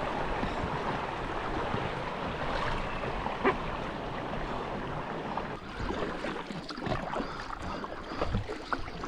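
River water washing and rushing around an inflatable packraft among rocks, a steady wash that eases about halfway through. After that come scattered paddle splashes and knocks.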